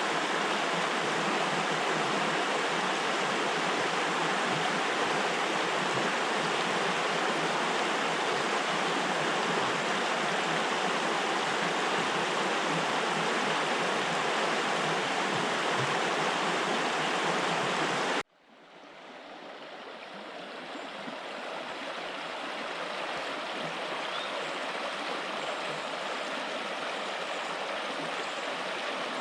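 Steady rush of a flowing stream. About eighteen seconds in it cuts off sharply, then a duller, quieter stretch of running water fades back in.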